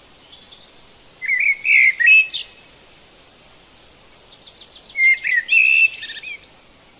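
A songbird singing two short warbling phrases, the second starting with a faint run of quick notes, over a faint steady hiss.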